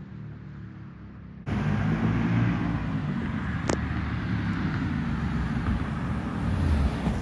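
Car engine running under a steady rumble of driving noise, turning abruptly louder about a second and a half in, with one sharp click near the middle.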